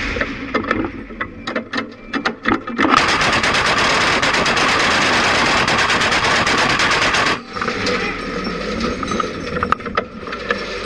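Twin-barrelled anti-aircraft gun firing one long burst of rapid automatic fire, starting about three seconds in and lasting about four and a half seconds. Scattered clicks and knocks come before and after the burst.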